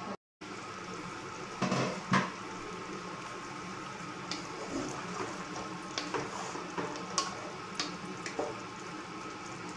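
Wooden spatula stirring thick okra curry in a nonstick pot, with scattered knocks and scrapes against the pot, the loudest two about two seconds in, over a steady hiss of the simmering curry.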